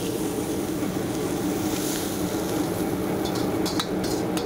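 A high-powered wok burner's flame rumbles steadily under a wok of vegetables being stir-fried with a metal ladle, with a light sizzle. In the last second or so, a few sharp clinks come from the ladle striking the wok as the greens are tipped out.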